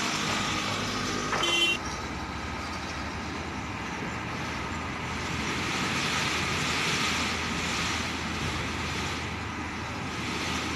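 Truck engines running as trucks move slowly through a yard, a steady low rumble that swells a little midway as a vehicle passes close. A brief high tone sounds about a second and a half in.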